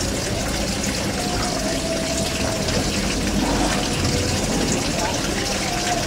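Steady rushing noise like running water, with a few faint tones drifting through it.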